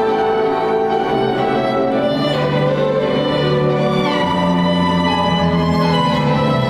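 School orchestra playing a light orchestral waltz, the violins carrying the tune over cellos, with a downward slide in pitch about four seconds in.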